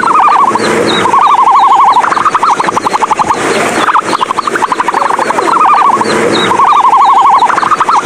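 An animal call: a repeated rapid warbling trill that wavers up and down in pitch, in phrases of about a second, with faint quick ticks above it. It does not match the deep booming of an ostrich.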